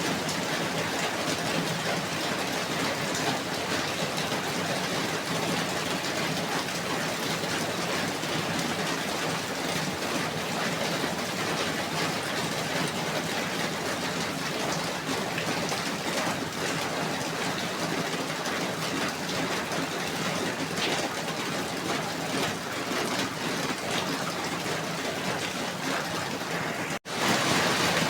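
Steady rain falling, a continuous even hiss. About a second before the end it cuts out for an instant and comes back slightly louder.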